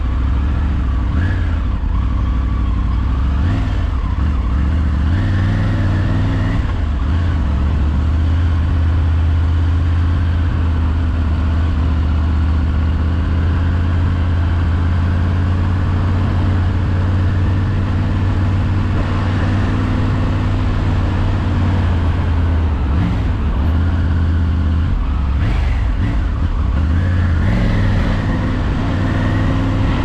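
Triumph Tiger adventure motorcycle's three-cylinder engine running steadily under way, heard from the rider's helmet with wind and road noise. The engine note shifts several times, once about six seconds in and again a little over twenty seconds in, as the throttle and gears change.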